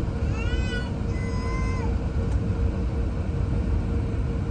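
Steady low rumble of airliner cabin noise aboard an Airbus A380, with a faint steady hum. A short pitched sound rises and then holds for about a second, near the start.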